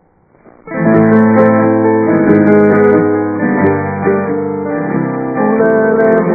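A recorded song begins about a second in with a piano introduction of sustained chords.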